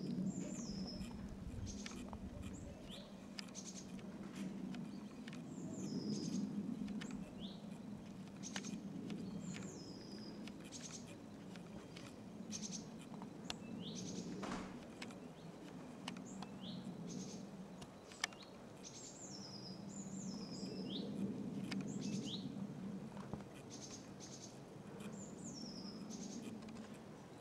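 Small birds chirping again and again, each call a short downward-sliding note, over a low, even rumble that slowly swells and fades. One sharp click comes about two-thirds of the way through.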